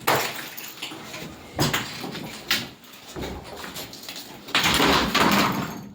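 A door being pushed open, scraping and rattling in bursts, with the longest and loudest scrape about four and a half seconds in.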